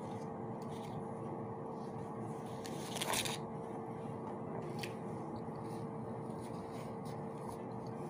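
Eating a burger: soft chewing and bites with rustling of its paper wrapper, heard as scattered faint clicks. The loudest is a short rustling burst about three seconds in. A steady background hum runs underneath.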